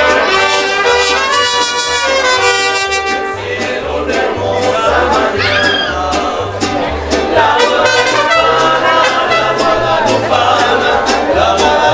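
Mariachi band playing: trumpets carry the melody over strummed guitars and a deep bass line that alternates between two notes in a steady beat.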